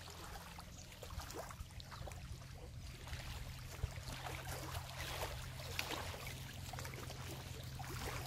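Small waves lapping at a rocky shore and a hooked tilapia splashing as it is reeled and hand-lined in to the bank, with scattered small splashes and ticks over a steady low rumble.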